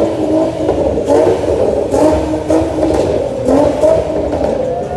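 A car engine revving over and over, its pitch rising and falling again and again.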